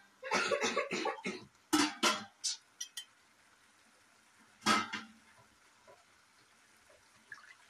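Kitchen utensils and dishes clattering: a quick run of knocks and clinks, a few light clicks, then one more clatter about five seconds in.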